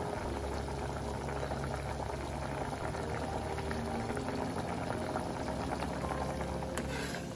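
Chicken curry bubbling at a rolling boil in a pan on the stove: a steady bubbling with many small pops.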